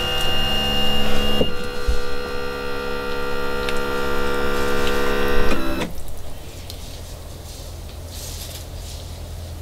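Yamaha F70 outboard's power tilt-and-trim motor whining steadily as the engine is tilted up, tilted up and down to drain water out of it for winterizing. Its pitch shifts about a second and a half in, and it stops suddenly about six seconds in, leaving a faint low hum.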